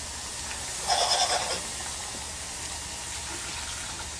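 A saucepan being handled as blanched sliced green onions are drained: one short scraping, ringing sound about a second in, over a steady background hiss.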